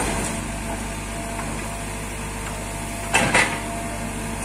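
Excavator's diesel engine running steadily while the bucket digs and lifts a load of earth, with a thin steady whine over it. Two sharp knocks come a moment apart about three seconds in.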